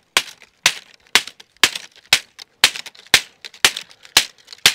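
A stick of wood drawn again and again across a fixed Mora Garberg knife blade, shaving off curls for feather sticks: a sharp scraping stroke about twice a second, about ten strokes in all.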